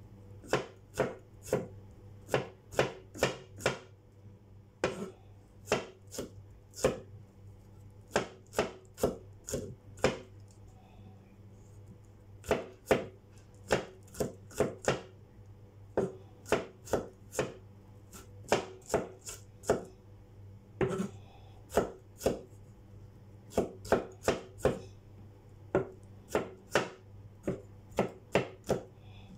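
Broad-bladed kitchen knife chopping peeled garlic cloves on a wooden cutting board: sharp knocks of the blade on the wood, in quick runs of two or three strokes a second broken by short pauses.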